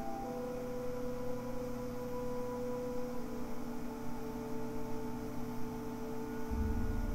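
Quiet, sustained droning tones of music played back through a small spiral back-loaded horn speaker with a Fostex FF105WK full-range driver. The held notes shift slightly about three seconds in, and a deep bass tone comes in near the end.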